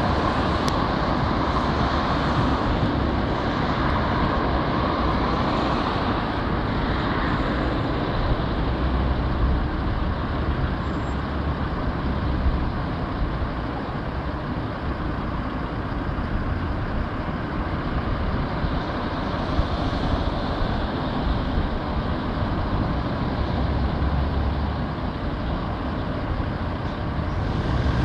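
Steady road traffic noise: car engines running at stopped lanes and vehicles driving across a junction, with no breaks.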